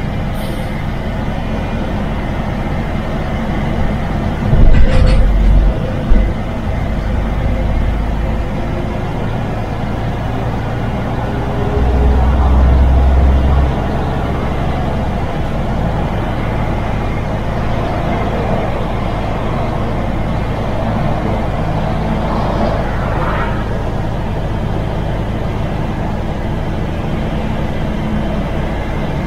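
MAN TGX truck's diesel engine running steadily under way, with road noise. A burst of deep low rumble with a short click comes about five seconds in, and another low swell around twelve to thirteen seconds.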